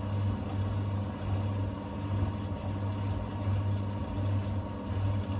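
Thompson TD120 compact vented tumble dryer running: a steady motor hum with a faint, even whine above it.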